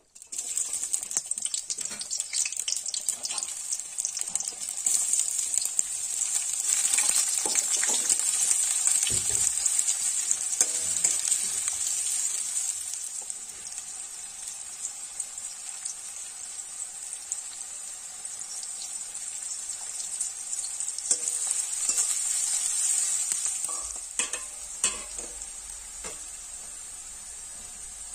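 Sliced onions frying in hot oil in a metal kadai: a steady sizzle with crackle, louder for the first dozen seconds, then settling to a softer sizzle. A few knocks near the end.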